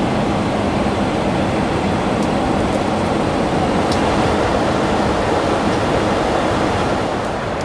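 Steady rush of air and engine noise inside the cabin of a Boeing 747-400 airliner, even in level throughout, with a faint low hum underneath.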